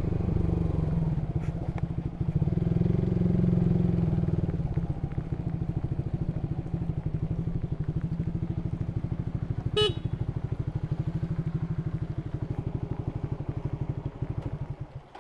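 Honda Supra GTR150's single-cylinder 150 cc engine running through an aftermarket Tridente exhaust while riding. It pulls harder for the first few seconds, then settles back to a lower, steady drone. A brief high-pitched tone sounds about ten seconds in.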